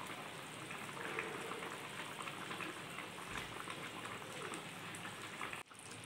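Hilsa in mustard gravy simmering in a pan, the thick sauce bubbling and spitting with a steady soft crackle as it reduces and releases its oil. The sound breaks off for a moment near the end.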